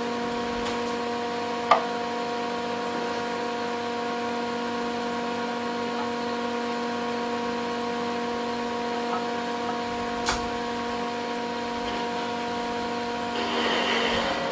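A steady hum of a few even tones, like a running machine or electrical hum, with two short sharp clicks, about two seconds in and again about ten seconds in.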